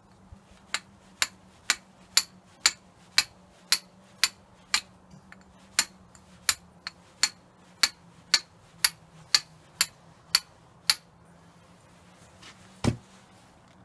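Steel fire striker struck against a flint in a steady run of about twenty sharp clicks, roughly two a second, throwing sparks to light tinder; the strikes stop about 11 seconds in. A single duller knock follows near the end.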